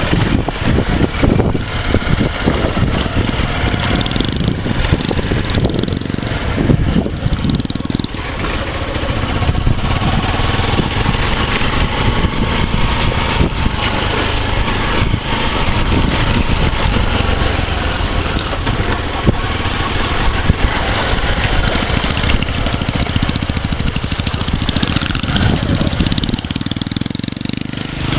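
Small motorcycle engine running steadily as the bike is ridden along a dirt trail.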